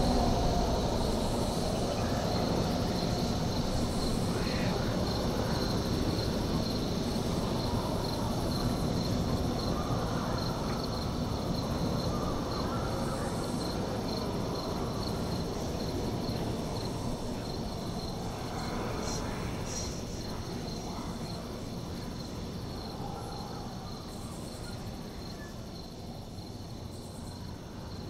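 Crickets chirping in a steady, pulsing high trill over a low background rumble, the whole slowly fading out.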